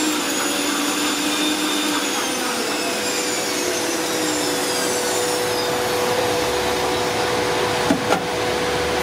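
Electric countertop blender motor whirring steadily, with a high whine that slides down in pitch partway through; a single knock near the end.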